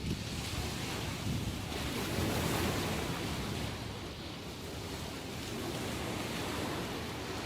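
Ocean surf in a rough post-typhoon sea: waves breaking and washing in, the noise swelling and ebbing in slow surges.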